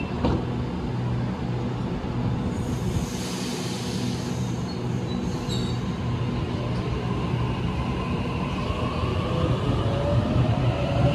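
Sydney Trains Waratah double-deck electric train pulling away from the platform. A steady electrical hum runs throughout, with a hiss a few seconds in. Over the last few seconds the traction motors' whine rises in pitch and grows louder as the train accelerates.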